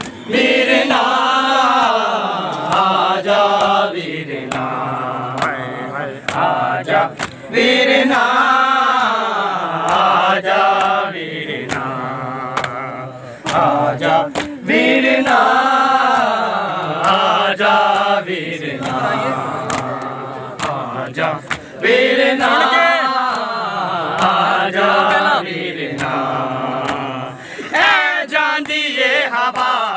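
A group of men chanting a Punjabi noha (Muharram lament) together, unaccompanied, in long drawn-out phrases that rise and fall in pitch. Sharp slaps of chest-beating (matam) fall here and there.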